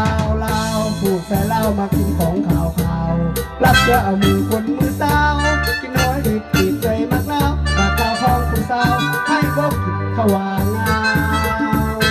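Korg Pa arranger keyboard playing a dance-style backing: a steady programmed drum beat and bass under a keyboard melody.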